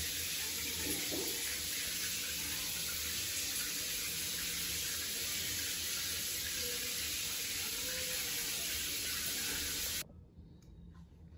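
Running water, a steady hiss, in a small tiled bathroom; it cuts off abruptly about ten seconds in, leaving quiet room tone.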